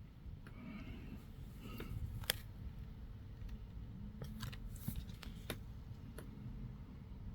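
Scattered small clicks and taps over a low, steady rumbling hiss, with no notes played; the loudest click comes about two seconds in.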